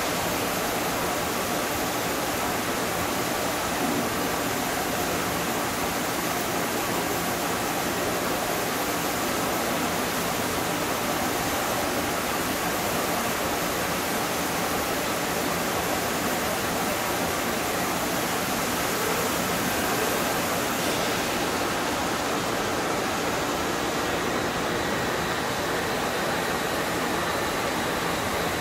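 A steady, even rushing noise with a faint low hum underneath, unchanging throughout.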